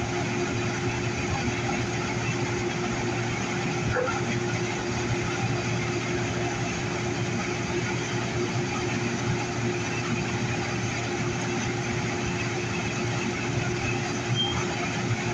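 Steady running noise heard inside a light rail car as it pulls into a station, with a constant low hum underneath.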